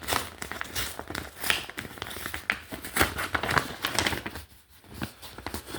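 Mail package wrapping being crinkled and torn open by hand: a dense run of irregular rustles and rips, with a short pause a little over four seconds in.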